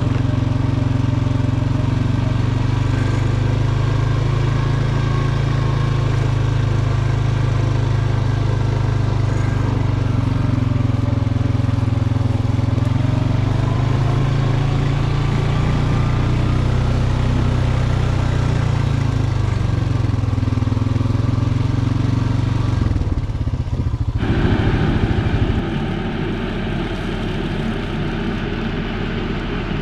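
John Deere 5045E tractor's three-cylinder diesel running steadily under load while pulling a rotary cutter, its pitch dipping and recovering in the middle. About 24 seconds in the sound changes abruptly to a quieter, different engine sound.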